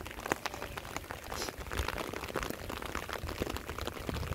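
Steady rain falling, with many small sharp ticks of drops striking close by and a low rumble underneath.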